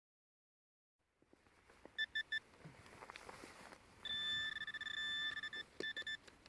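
Garrett ACE 400i metal detector signalling a buried target. Three short electronic beeps come about two seconds in, then a longer held tone broken by short gaps and a few more beeps as the coil sweeps over the spot.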